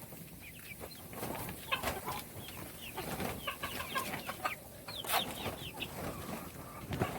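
Baby chicks peeping: many short, high chirps, some falling in pitch, overlapping at an uneven pace, with a few short clicks among them.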